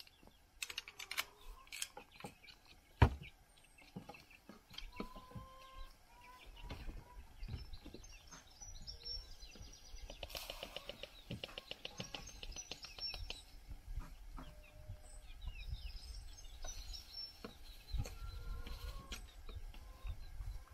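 Small birds chirping, over knocks and clunks from handling a chicken run's wooden mesh door and a plastic poultry drinker. The loudest is a sharp knock about three seconds in.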